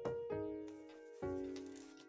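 Background music: a keyboard playing notes that ring and fade, three fresh notes struck in these two seconds.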